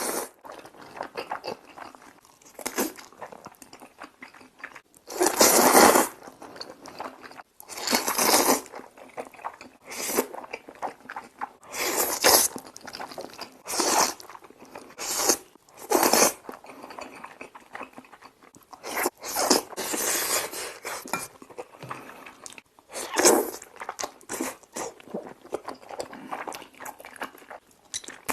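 A person eating spicy Korean noodles close to the microphone. Loud slurps, each about half a second to a second long, come every few seconds, with wet chewing between them.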